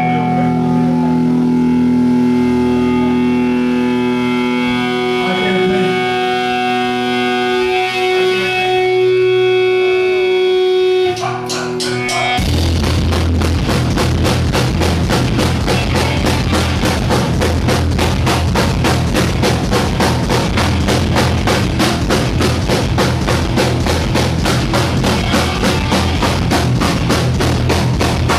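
Punk rock band playing live. Electric guitar chords ring and are held for about twelve seconds, then the full band comes in with fast drums, distorted guitars and bass.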